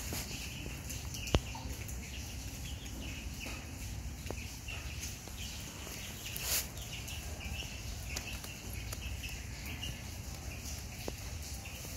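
Faint bird chirping over a steady low hum, with a sharp click a little over a second in and a brief rustle about halfway through, as a baby monkey scrambles about on a blanket.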